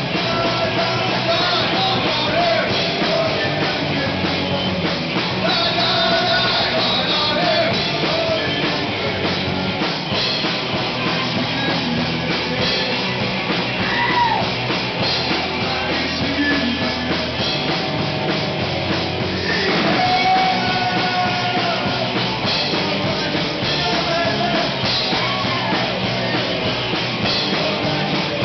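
Rock music played on a drum kit and other instruments, with singing over it.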